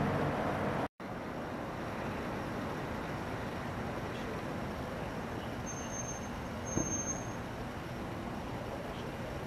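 Steady road traffic noise, with a low engine hum for the first second before a short dropout. Two short, faint high beeps come about six and seven seconds in.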